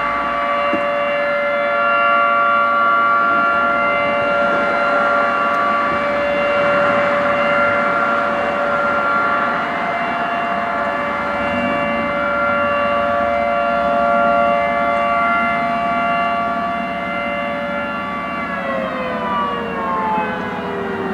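Federal Signal 2T22 dual-tone rotating outdoor warning siren sounding a steady two-tone chord at full speed. Near the end it starts to wind down, the chord falling in pitch.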